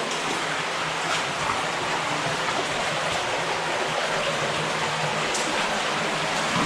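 Steady rushing of an underground stream and waterfall in a cave, with a few faint clicks over it.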